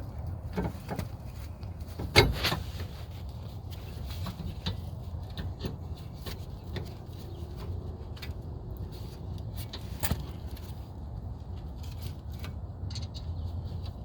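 Scattered metal clicks and knocks of a brake caliper and hand tools being handled, with a louder knock about two seconds in and another around ten seconds, over a steady low rumble.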